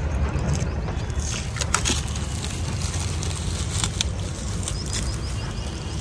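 Crinkling and rustling of a tinsel and flower garland being handled and pulled loose from a tractor's bonnet, in quick irregular ticks, over a steady low rumble.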